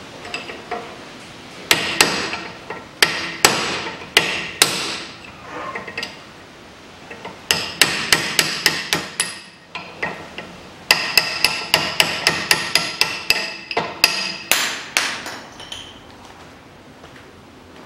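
Hammer striking a cold chisel set against the old wheel-bearing inner race on a Mazda 6 front hub, to split the race off after it was notched with an angle grinder. Sharp, ringing metal-on-metal blows: a few single strikes, then quick runs of several blows a second, stopping a couple of seconds before the end.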